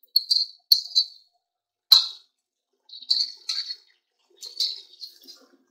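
Sliced onions sizzling in oil in a steel pot, in a series of short crackling spurts as they are stirred with a wooden spatula, at the start of frying.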